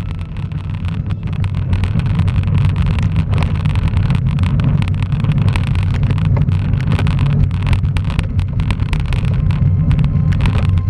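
Riding noise from a bicycle-mounted camera: steady low wind buffeting on the microphone and tyre rumble, with frequent sharp clicks and rattles as the bike rolls over cracked pavement.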